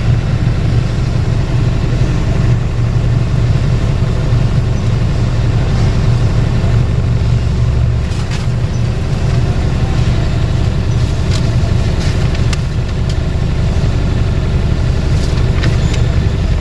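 Truck's diesel engine idling steadily, heard from inside the cab. A few sharp clicks and knocks come in the second half.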